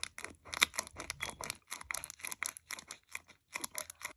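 Homemade cardboard spray bottle being pumped: the tape-wrapped cardboard nozzle is pressed down again and again against a spring inside, giving quick crinkly clicks of tape and cardboard, about four or five a second.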